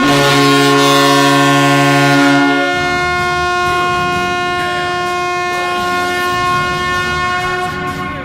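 Kahlenberg KM-135 air horn (the goal horn) blowing one long, loud, multi-tone blast. About two and a half seconds in, its lowest tones drop away and the horn holds on more thinly until near the end, over a growing wash of crowd noise.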